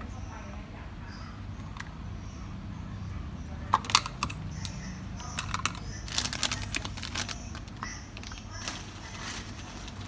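Clicks and taps of small hard parts being handled, a few at a time about four seconds in and a quick run of them around six to seven seconds in, over a steady low hum.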